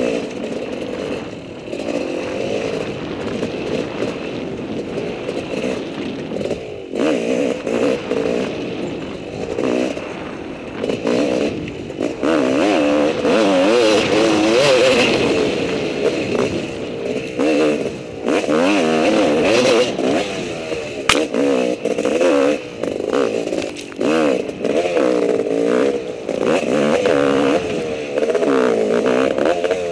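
Enduro dirt bike engine revving up and down constantly as the rider works the throttle over rough trail, with scattered clattering knocks from the bike over the ground.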